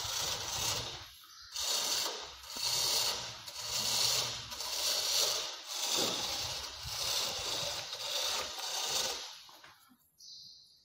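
Footsteps scuffing on sandy, gritty ground, about one step a second, stopping shortly before the end.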